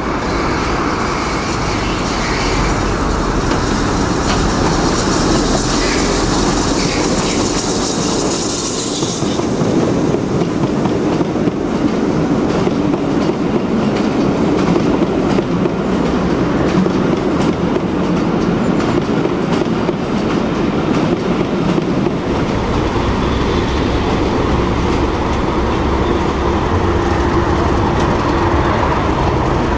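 A steam-hauled train of passenger carriages rolling slowly past, its wheels clicking and clacking over rail joints. A high hiss runs through the first nine seconds or so, and a deeper rumble comes in during the last third.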